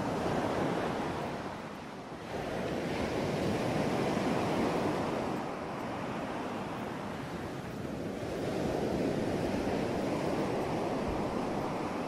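Ocean surf: waves breaking and washing ashore in a steady rush that swells and ebbs about three times.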